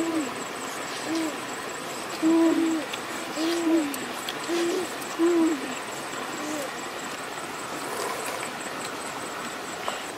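A bird's low hooting calls: about eight short hoots at uneven intervals, some in quick pairs, over a steady hiss.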